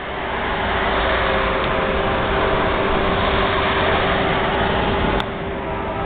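Approaching Amtrak shuttle train, a steady, building rumble that grows louder, with its multi-note horn starting to sound near the end.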